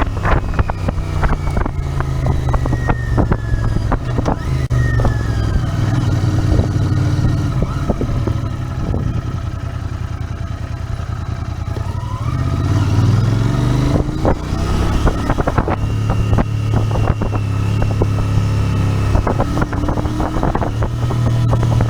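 Royal Enfield Interceptor 650's parallel-twin engine running while riding, with wind buffeting the microphone. It eases off a little around eight seconds in, then pulls harder again about twelve seconds in.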